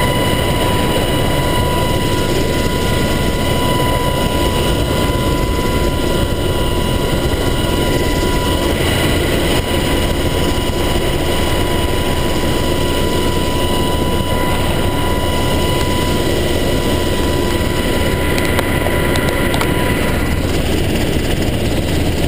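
Military helicopter in flight heard from inside its cabin with the door open: steady engine and rotor noise with a steady high whine over it.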